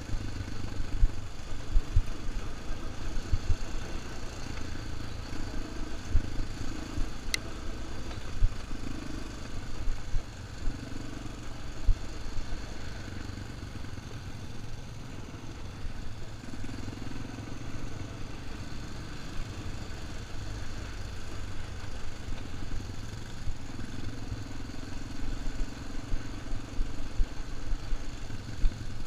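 ATV engine running at trail-riding speed, its note swelling and fading with the throttle, over a low rumble with frequent knocks from the rough dirt trail. There is one sharp click about seven seconds in.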